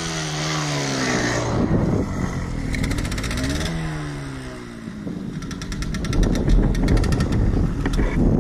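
Off-road motorcycle engines revving, the pitch rising and falling twice in the first four seconds, then a rougher, choppier engine sound close by.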